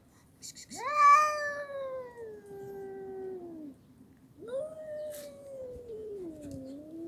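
Domestic cat yowling: two long, drawn-out meows, each sliding down in pitch. The first starts about a second in, and the second starts just past the middle and runs on to the end.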